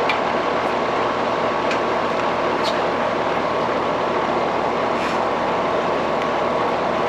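Steady whooshing noise from running machinery or a fan, with a few faint light clicks.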